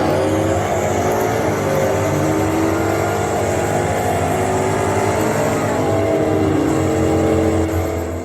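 Race-car engine sound, a steady multi-toned drone that starts abruptly and ends just before a shout.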